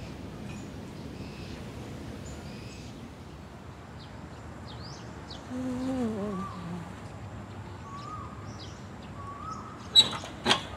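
Outdoor background of small birds chirping, with a crow cawing a few times in the middle. Near the end come two sharp clicks about half a second apart, the loudest sounds, as the scooter is handled.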